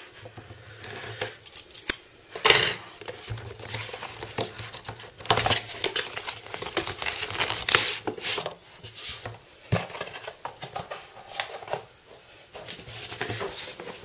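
Unboxing handling: scissors cutting at a cardboard box, then rustling and scraping as a rolled cloth mouse pad is slid out of its cardboard box, with a few sharp clicks of cardboard flaps.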